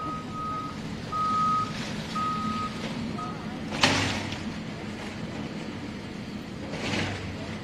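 Backup alarm on heavy machinery beeping in a few pulses of uneven length over a running engine, then a single sharp bang about four seconds in and a short rush of noise near the end.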